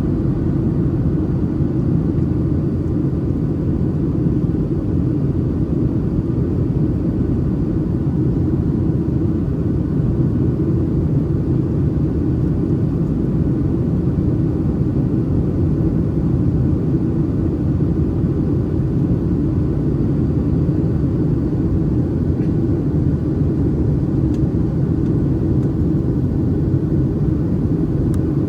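Steady cabin noise of a Boeing 737-800 in flight, heard inside the cabin: an even low rumble of airflow and the CFM56-7B engines.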